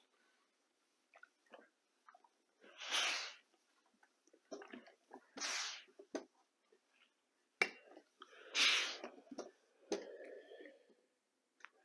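Ironing sewn quilting fabric strips: three short swishes of noise, about two and a half seconds apart, among light clicks and knocks from handling the fabric and the iron.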